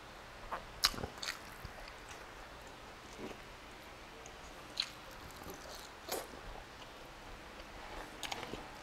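Close-miked wet chewing and mouth smacks of a person eating beef stew and rice by hand, with a few short sharp clicks scattered through. The loudest come about a second in and around six seconds.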